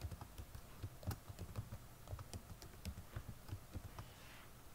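Faint typing on a computer keyboard: a quick, irregular run of key clicks that thins out near the end.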